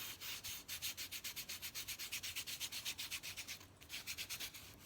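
A homemade tool made from little coffee spoons rubbed quickly back and forth over freshly glued paper and cardstock, pressing it down so it sticks. The rubbing comes in even strokes, about six a second, with a short pause near the end.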